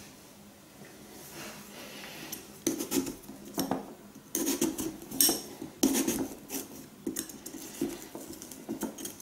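A knife cutting into a raw pumpkin: a run of irregular crunching, scraping strokes through the rind and flesh, starting about two and a half seconds in.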